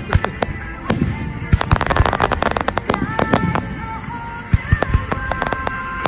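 Aerial fireworks going off in a rapid, irregular run of sharp bangs and crackles, thickest in a dense burst of crackling about two seconds in. Steady held tones join in about halfway through.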